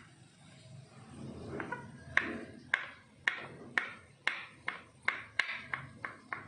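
Kitchen knife slicing a mushroom cap on a wooden cutting board. The blade knocks sharply on the board about twice a second, starting about two seconds in.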